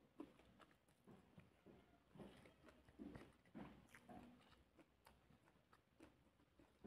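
Faint, irregular chewing and wet mouth smacks from a person eating rice by hand, with soft clicks as the fingers pick at the plate.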